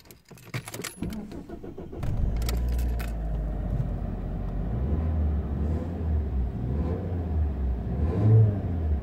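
Car keys jangle in the ignition, the starter turns, and the car's engine starts about two seconds in, then runs at a steady idle.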